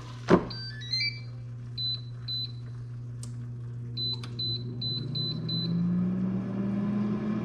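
NuWave air fryer: the basket knocks shut, then the control panel gives a string of short high beeps as the time buttons are pressed, about five in quick succession in the middle. Near the end a motor hum comes up and rises in pitch, the air fryer's fan starting.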